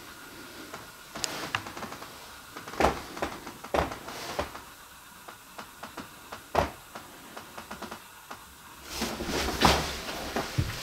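Scattered faint clicks and a handful of sharper knocks, spread unevenly, with a stretch of rustling in the last couple of seconds.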